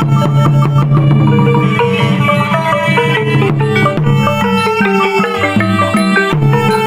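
Khmer pinpeat ensemble music: several melodic instruments playing a busy, fast-moving line over hand-drum strokes.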